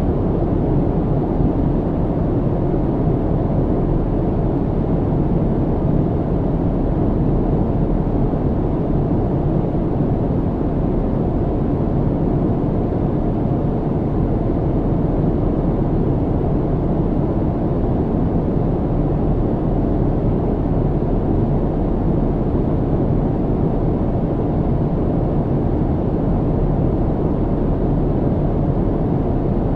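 Airplane cabin noise in flight: a steady, even low rumble of engine and airflow noise as heard from inside the passenger cabin.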